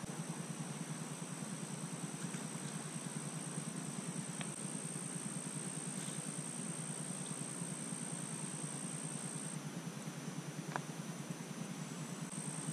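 Insects trilling steadily at a high pitch, cutting out about ten seconds in and starting again near the end, over a steady low rumble. Two faint ticks stand out, one about four seconds in and one near eleven seconds.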